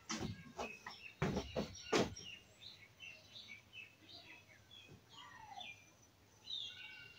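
Several sharp knocks in the first two seconds, then birds chirping in many short, quick calls that slide up and down in pitch.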